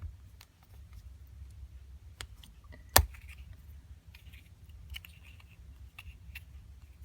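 Small gumball-machine trinkets being handled, with light scattered clicks and rustles and one sharp click about three seconds in.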